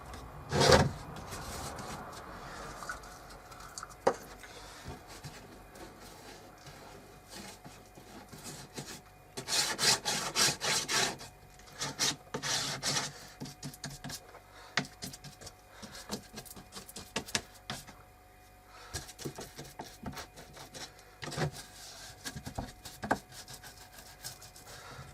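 Intermittent rubbing and scraping on wood, with scattered small knocks and clicks from handling, and louder scraping spells about a second in and again around ten and twelve seconds.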